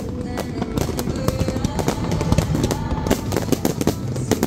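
Fireworks bursting and crackling in quick, dense succession over background music.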